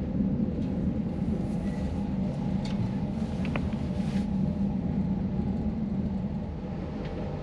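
Steady low rumble inside a V/Line N class train's passenger carriage, with a couple of faint clicks around the middle.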